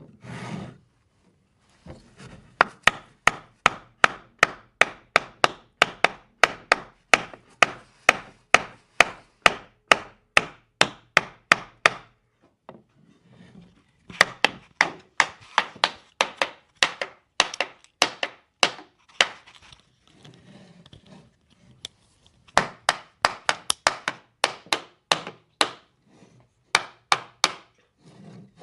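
Hammer knocks on wood, struck in steady runs of about two to three blows a second, with two short pauses partway through.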